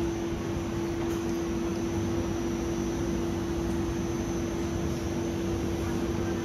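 Steady machine hum with one constant tone under an even hiss, unchanging throughout.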